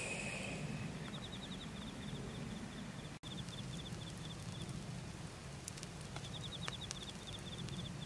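Night insects chirping in short, rapid high trills that come and go, with a few faint ticks from the campfire's glowing embers.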